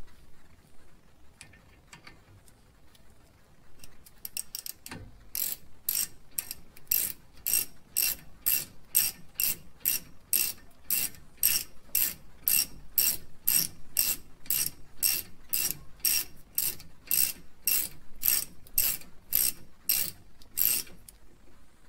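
Hand socket ratchet clicking as it is swung back and forth on a front brake caliper bolt, a steady run of about two and a half clicks a second. It starts about five seconds in and stops just before the end.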